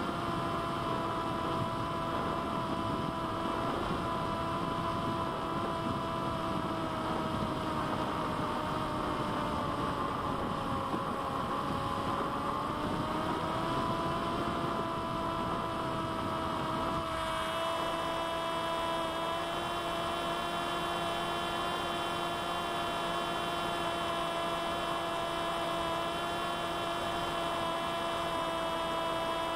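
Electric motor and propeller of a C1 Chaser FPV flying wing in cruise, heard from the onboard camera: a steady whine whose pitch sags briefly about ten seconds in and comes back up. A little past halfway the rushing noise underneath fades and the whine sounds cleaner.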